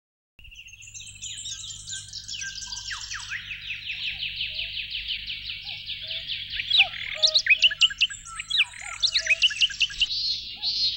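Several birds chirping and trilling as an anime sound effect, starting about half a second in and growing louder, with rapid trills and then sharp, loud chirps in the second half. A faint low hum runs underneath.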